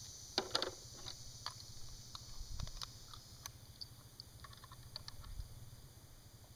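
Scattered small clicks and taps from something being handled, with the sharpest cluster about half a second in. A steady high insect trill runs underneath.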